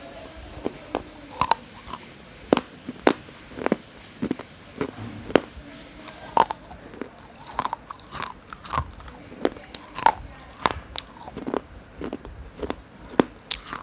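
A person biting and chewing something hard and crunchy close to the microphone: a steady run of sharp cracks, about one or two a second.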